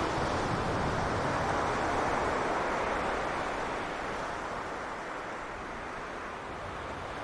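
Sea waves washing onto a beach: a steady rushing surge that swells and then eases off about four seconds in.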